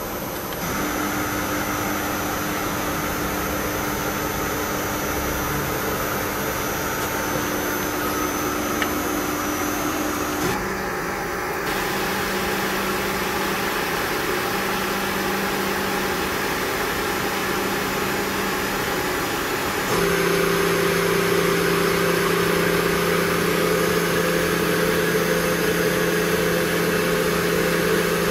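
Spindle of a Hardinge VMC-1000-II CNC vertical machining center running with no cut, a steady motor hum and whine. Its pitch shifts in steps as the spindle speed is changed about a third and two thirds of the way through, and it is louder after the second change.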